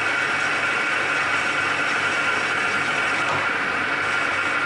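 Metal lathe running steadily while a finishing tool takes a cut in the bore of an electric motor bearing housing: an even machine hum and hiss with a steady high whine.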